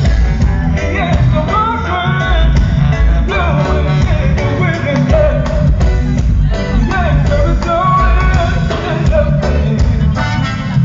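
A live ska band: a male singer sings into a microphone over electric guitar, bass and drums playing a steady beat.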